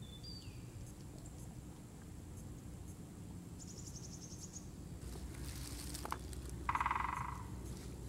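A great spotted woodpecker drums once near the end: a short, very fast roll of strikes on wood lasting well under a second, the loudest sound here. Before it, small birds call, a brief chirp at the start and a high rapid trill around the middle.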